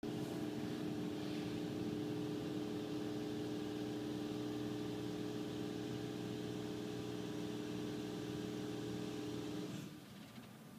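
A machine's steady hum with a broad hiss, heard from inside the car; it cuts off abruptly near the end.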